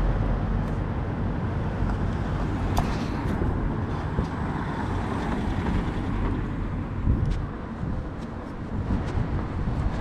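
Steady outdoor street noise: a low rumble of road traffic, with a few faint clicks.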